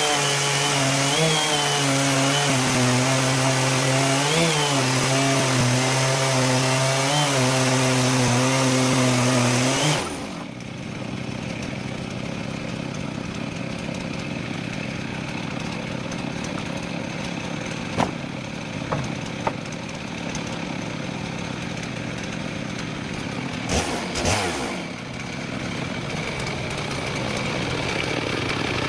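Chainsaw on a homemade chainsaw mill running steadily under load as it rips a log into lumber. Its note wavers slightly, then drops away abruptly about ten seconds in. After that a quieter steady running sound remains, broken by a few sharp knocks.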